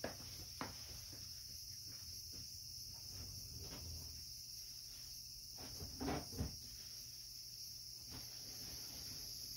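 Steady high-pitched drone of an insect chorus, with a few faint soft knocks about six seconds in.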